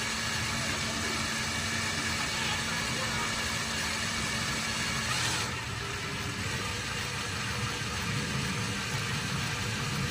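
Electric drill running steadily, its oiled bit grinding slowly into a metal bracket: a hard, slow cut, with oil used to keep the bit from overheating. About halfway the sound changes, the high whine easing off.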